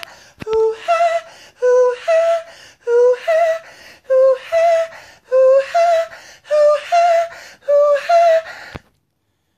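A person's voice making a repeated two-note rising sound, about once a second, eight times over, stopping near the end.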